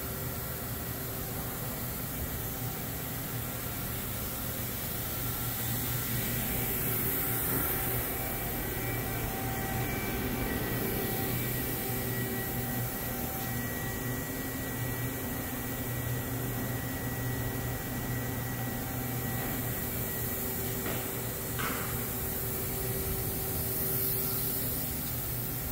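Tongtai TMV-510T CNC vertical mill running: a steady machine hum with several whining tones, some coming in and dropping out partway through, and a brief tick about 21 seconds in.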